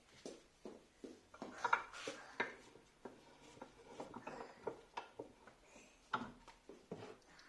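Irregular light clicks, taps and scrapes of metal parts being handled: a motorcycle swing arm's bushes and pivot bolt being fitted, with a busier run of knocks about one and a half seconds in and a sharp tap near six seconds.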